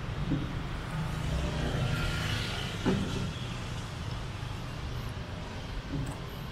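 Street traffic: a vehicle passes close by, its noise swelling and fading over a steady low traffic rumble, with one sharp knock about three seconds in.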